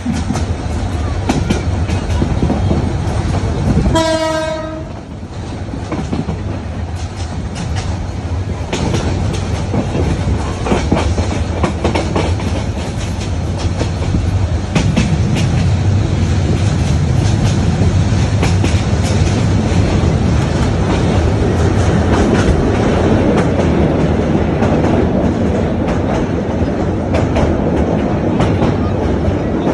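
Passenger train running, heard from inside a carriage: a steady rumble with wheels clicking over the rail joints, growing louder in the second half. A short horn blast sounds once about four seconds in.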